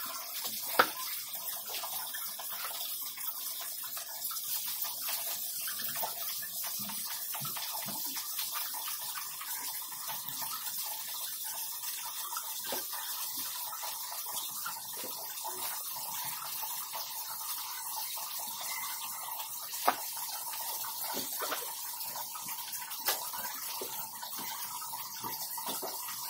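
Wet, soapy washing sounds as a Shih Tzu puppy's lathered coat is scrubbed by hand in a shallow tub of water, over a steady hiss. There are a few sharp knocks: about a second in and twice in the last third.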